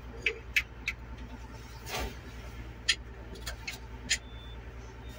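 Irregular sharp clicks and taps of hands and tools working on the exposed valve train (rocker arms and push rods) of a truck diesel engine while its tappets are being set, over a steady low hum.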